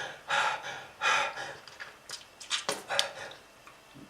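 A person breathing heavily and with effort, several rasping breaths in and out with a few catching clicks, then growing quieter near the end. It is presented as the breathing of a smoker with lung disease.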